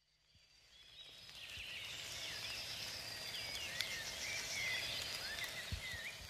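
Outdoor ambience with small birds chirping, many short quick calls over a faint steady background, fading in about a second in.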